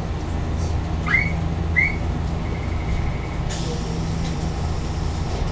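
Steady low hum of a standing Randen tram (straight air brake system), heard from the cab. Two short rising chirps come about one and two seconds in. A sudden hiss of air about three and a half seconds in is typical of the air brake.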